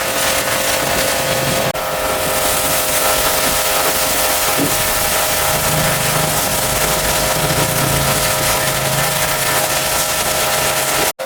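A motor-driven cleaning machine running steadily, a constant hum under a loud rushing hiss, cut off for an instant twice, about two seconds in and right at the end.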